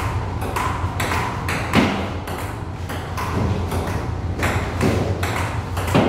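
A table tennis rally: the celluloid ball clicking in turn off the rubber paddles and the table, about two clicks a second. A steady low hum runs underneath.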